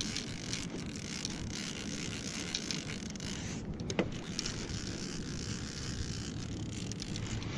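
A fishing reel being cranked steadily, bringing a fish up from the bottom, under a constant hiss of wind and water. A single sharp click comes about four seconds in.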